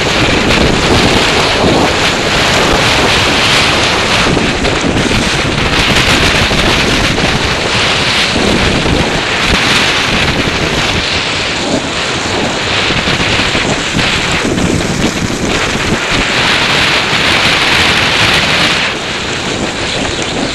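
Wind rushing over a helmet-mounted camera's microphone, mixed with the hiss and scrape of a snowboard running over snow. The hiss rises and falls in waves every few seconds.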